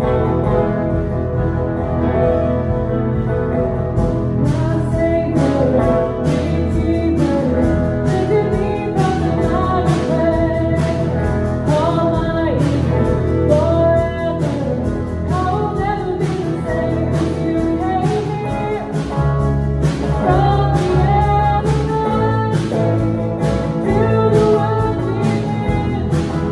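Live worship band playing: a woman singing lead over electric guitar, bass guitar, drum kit and keyboards. The drums come in with a steady beat about four seconds in.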